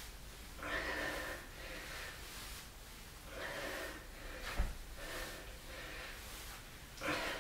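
A man breathing hard from exertion, with loud exhalations every few seconds, strongest about a second in and near the end. A single soft thump comes about four and a half seconds in.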